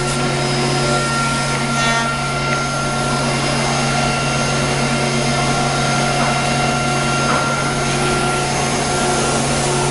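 Automatic tool-change CNC wood router running and cutting wooden parts: a steady machine hum with several steady whining tones above it.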